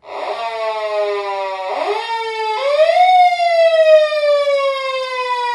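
Japanese police car siren wailing. It starts abruptly on a falling tone, sweeps up quickly twice, about two and three seconds in, then glides slowly down in a long wail.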